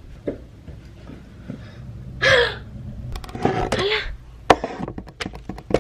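A young woman's short, breathy gasp-like exclamations, one about two seconds in and another a second later. They come with a run of sharp clicks and knocks as the camera is grabbed and handled close to the microphone.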